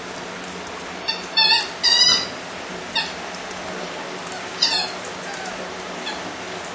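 Cane Corso puppies giving several short, high-pitched yelps and squeals as they play, the loudest and longest about two seconds in.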